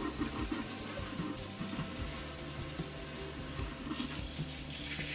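Kitchen faucet running steadily into the sink while hands are scrubbed under the water.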